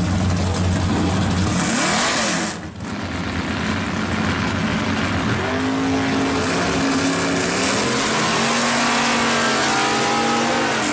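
A 1968 Pontiac drag car's engine revving during a burnout, its pitch climbing from about five seconds in and holding high. A deep engine rumble at the start fades out about two and a half seconds in.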